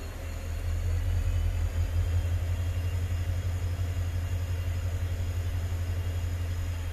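Low, steady rumble of a passenger train coach rolling slowly along a station platform, heard from the coach itself. It grows a little louder about a second in.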